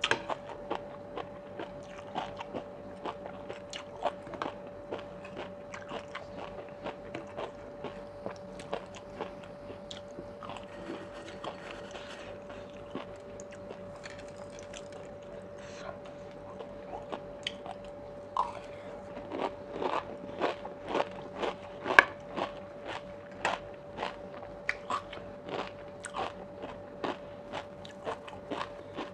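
Close-miked eating: crisp crunching and chewing of spicy oyster salad topped with crispy fried shallots, with many short sharp crunches that come thicker and louder in the second half, the loudest about two-thirds of the way in. A faint steady hum runs underneath.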